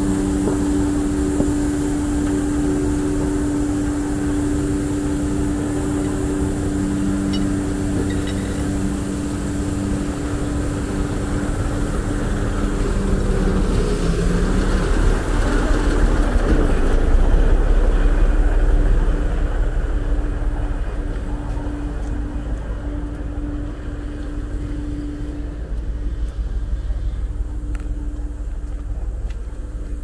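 Heavy diesel truck engine idling, with a steady machinery hum of two held tones; the low engine rumble swells about halfway through and then eases off, while the hum fades near the end.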